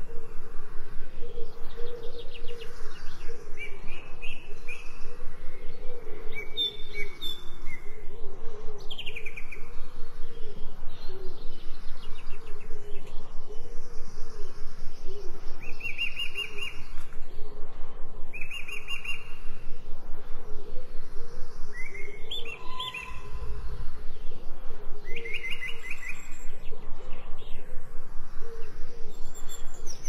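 Songbirds chirping and singing in short trilled phrases every few seconds, over a steady low background.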